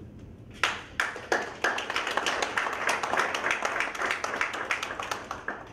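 Audience applauding: a few separate claps about half a second in, quickly thickening into steady clapping that stops shortly before the end.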